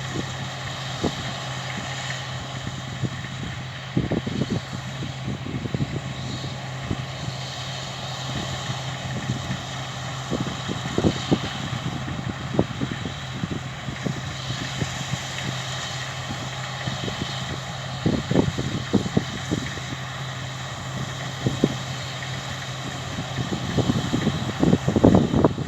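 Massey Ferguson combine harvester working the field: a steady engine drone over a rushing haze of machine noise. Irregular short thumps run throughout and come thicker and louder near the end.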